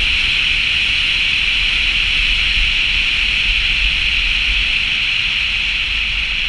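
Steady rushing hiss of wind over a roof-mounted camera on a moving car, over a low rumble of the tyres on the road.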